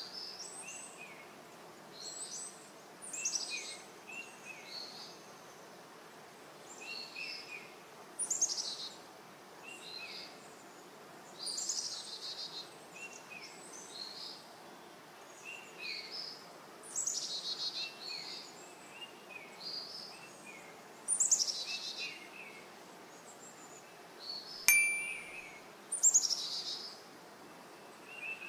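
Songbirds singing: short, high, falling phrases and chirps repeated every second or two over faint outdoor background noise. A single sharp click comes near the end.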